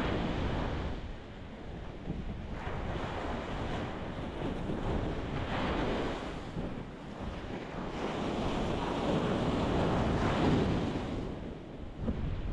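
Ocean waves breaking on a rocky shore, washing in and out in several swells over a steady low rumble. The biggest surge comes in the last few seconds before it ebbs away.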